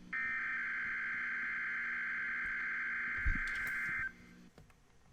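EAS SAME header from NOAA Weather Radio: a steady two-tone digital data burst about four seconds long that cuts off abruptly, coding a Required Weekly Test. A short click comes about three seconds in.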